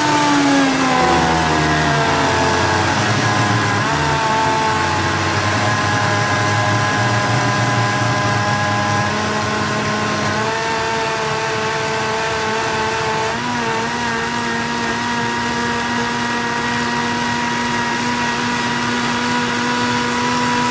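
Countertop blender running at high speed, puréeing cooked vegetables into a vegan cheese sauce. Its motor pitch drops over the first couple of seconds, then runs steady, shifting to a new pitch about ten and again about thirteen seconds in.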